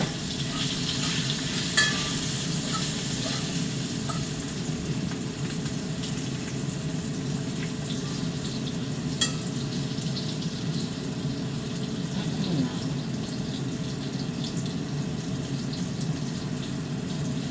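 Potatoes frying in a cast iron skillet: a steady sizzle with a low hum underneath. A couple of sharp clicks come about two seconds in and again about nine seconds in.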